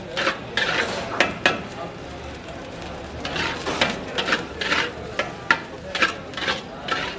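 Metal ladle scraping and knocking against a wok as egg fried rice is stirred and tossed, in quick, irregular strokes.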